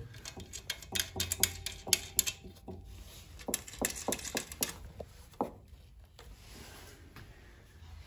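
Small metal nuts, bolts and chrome parts being handled and fitted by hand on a motorcycle's front end, making a run of irregular sharp clicks and taps that thin out to faint rubbing about five seconds in.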